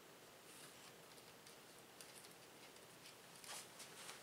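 Near silence: room tone with faint scattered small clicks from handling parts, a few slightly louder ones near the end.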